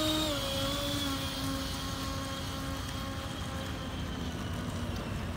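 Twin 70 mm electric ducted fans of an FMS A-10 RC jet model whining under power during its takeoff roll. The pitch dips slightly about a third of a second in, and the whine slowly weakens as the model moves away.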